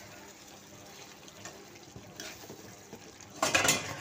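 Spatula stirring thick mutton and potato curry in a frying pan, faint at first, then a loud burst of scraping against the pan near the end.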